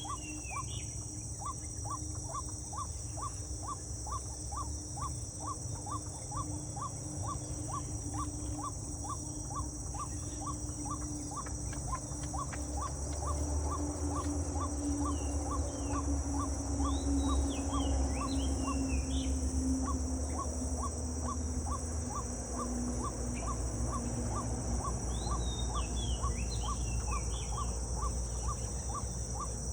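Natural outdoor ambience: a steady high-pitched insect drone, a short call repeating about twice a second, and scattered bird chirps, over a low rumble that is strongest in the middle.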